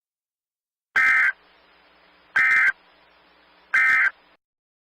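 Emergency Alert System SAME digital data bursts: three short, identical buzzy chirps about a second and a half apart. These are the End of Message code that closes an EAS alert.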